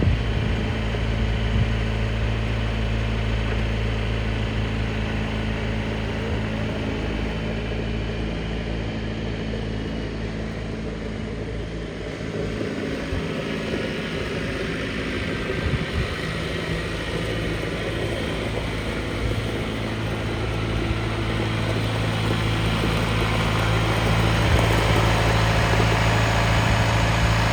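John Deere 2850's four-cylinder turbocharged diesel engine running steadily at a constant speed, growing somewhat louder in the last few seconds.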